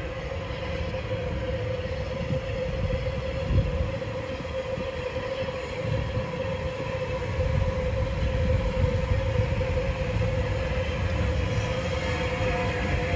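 Unrebuilt Bulleid West Country class steam locomotive 34092 City of Wells running slowly toward the listener, with a low rumble and a steady tone that grow louder as it nears. A single knock sounds about three and a half seconds in.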